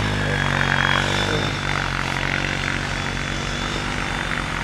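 ATV engine running steadily as it tows a snow tube and pulls away, growing slightly fainter.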